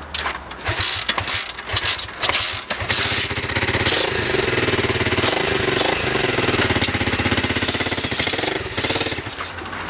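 Single-cylinder 125cc pit bike engine with a makeshift exhaust being kick-started: a few irregular sputters for the first three seconds, then it catches and runs with a fast pulsing beat, the revs rising and falling, easing off about a second before the end.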